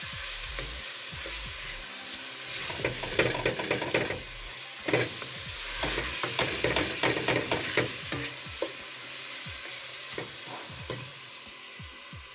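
Chopped onion and garlic sizzling in olive oil in a stainless steel pot, sautéed until soft and translucent, with a wooden spoon scraping and knocking against the pot as it stirs. The scraping comes thickest through the middle and eases off near the end.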